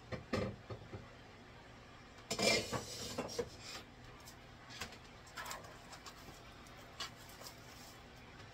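Kitchen handling noises: a few light knocks at the start, a louder clattering rustle about two to three and a half seconds in, then scattered soft clicks and rustles.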